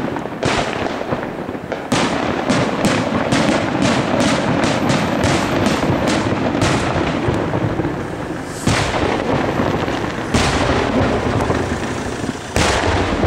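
Aerial fireworks shells bursting over a continuous rumbling echo. A rapid string of sharp bangs, about three a second, starts about two seconds in. Three heavier single booms follow in the second half.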